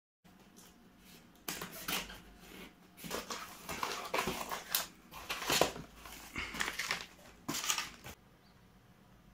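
Plastic wrapping crinkling and a cardboard box rustling as hands unpack it, in irregular bursts that stop about eight seconds in.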